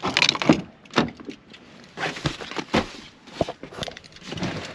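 Keys jangling and a Ford pickup truck's door being unlatched and opened, followed by a series of clicks and knocks as someone gets into the cab.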